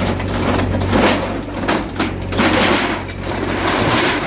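Bulldozer engine running steadily under a string of irregular crashing and crumbling noises as it breaks down a shop structure and debris falls.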